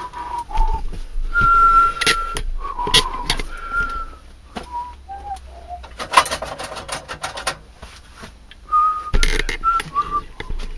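A person whistling a string of short notes, with sharp knocks and clinks in between and a stretch of clatter a little past the middle.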